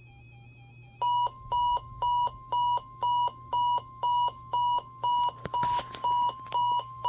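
RCA RCDW10 weather radio's alert alarm beeping about twice a second, starting about a second in, over a steady tone near 1 kHz. The receiver has been set off by the NOAA Weather Radio warning-alarm test. A few sharp clicks sound a little past halfway.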